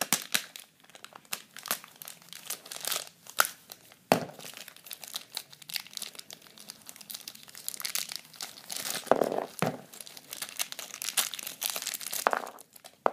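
Clear plastic parts bags crinkling and tearing as they are handled and pulled open by hand, with irregular crackles and a few sharper snaps.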